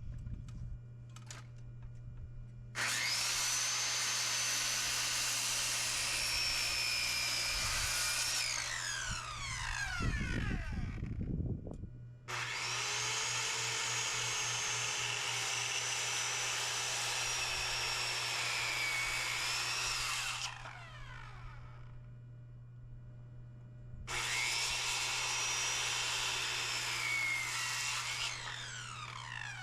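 An electric power tool's motor runs at full speed three times, for several seconds each, and winds down in pitch after each run, over a steady low hum.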